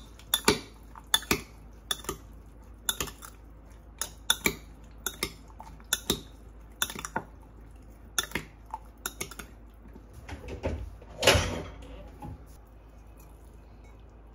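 Metal cutlery clicking and clinking against a dish at an uneven pace, about two clicks a second. About eleven seconds in comes one louder, longer scrape.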